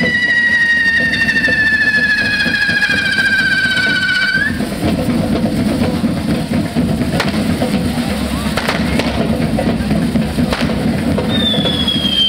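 Whistling fireworks from a devil group's firework display: a long shrill whistle slowly falling in pitch that cuts off with a brief upward flick about four seconds in, then a second falling whistle starting near the end. Drumming and a few sharp cracks sound underneath.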